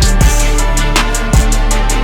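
Backing music with a steady drum-kit beat of kick drum and snare over held bass and chords.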